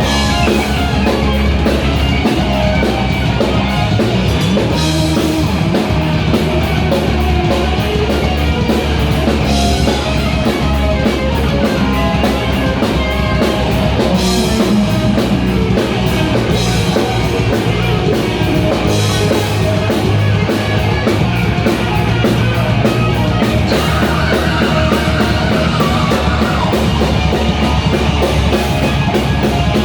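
Rock band playing live: electric guitar, bass and drum kit driving along steadily, with regular cymbal hits. Near the end a high note is held for a couple of seconds.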